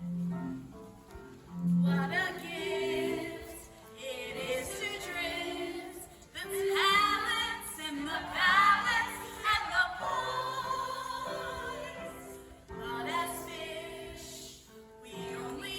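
Stage-musical ballad sung over a backing accompaniment, the voice wavering with vibrato on held notes and swelling to its loudest phrases about halfway through.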